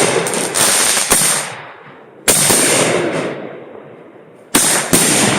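Consumer fireworks going off: a quick run of sharp bangs in the first second or so, another about two seconds in, and two more near the end, each followed by a crackling hiss that fades over a second or two.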